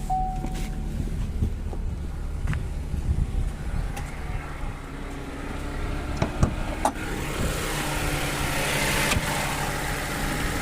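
Chevrolet Tracker's three-cylinder engine idling, with the light "tec-tec" ticking that owners complain about, which the owner takes as normal for a three-cylinder engine. A rushing hiss swells in over the last few seconds.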